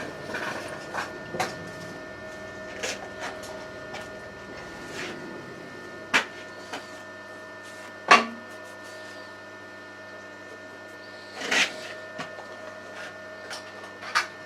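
Surface grinder's electric motor running with a steady hum, broken by a few sharp metallic clunks and knocks.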